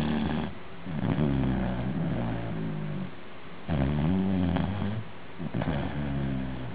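Cocker spaniel snoring: pitched snores a second or two long, one per breath, about four of them with short pauses between.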